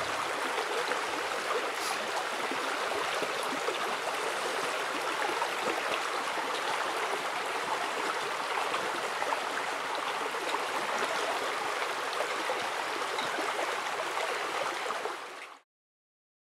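Steady rush of a flowing stream, which stops abruptly near the end.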